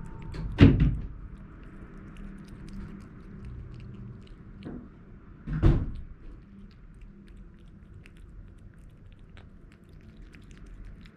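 Two dull thuds, about a second in and again about five seconds later, over faint scattered clicks and ticks in a small room.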